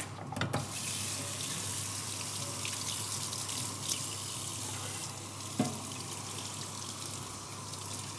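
Kitchen tap running steadily into a stainless-steel sink, starting about half a second in, with a single knock a little over halfway through.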